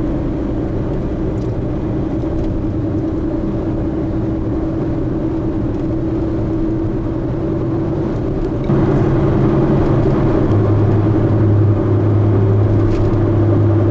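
A car driving at road speed: a steady drone of engine and tyres that gets louder about nine seconds in, with a deep steady hum joining shortly after.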